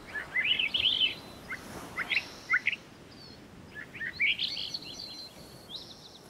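Small birds chirping: several quick flurries of short, sweeping high notes, over a faint steady background hiss.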